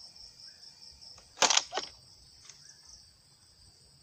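Homemade PVC gas-powered pump-action gun: a loud, sharp clack about a second and a half in, followed a third of a second later by a second, quieter clack. A steady high chirring of crickets runs underneath.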